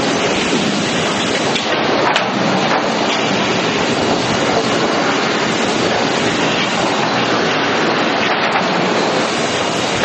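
Steady clattering run of sawmill machinery: a hardwood waterfall grading line's chain conveyors moving boards across its decks. A sharp knock comes about two seconds in.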